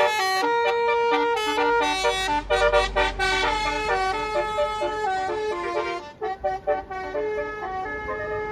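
Bus telolet horn, a multi-trumpet air horn, playing a quick tune of stepped notes. Short rapid toots are mixed with longer held notes, and the horn turns briefly fainter and choppier about six seconds in.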